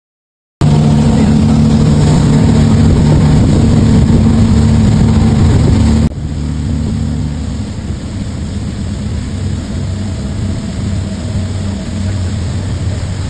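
Motorboat engine running under way with the rush of wind and water. About six seconds in it cuts to a quieter, lower engine hum.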